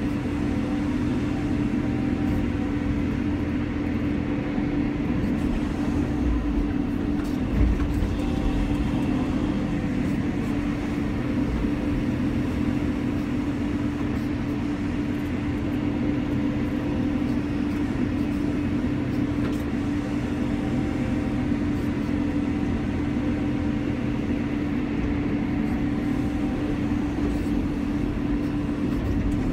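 Cat 320 excavator's diesel engine running steadily under load, heard from inside the cab, while the boom and bucket dig and dump dirt. A single thump about seven or eight seconds in.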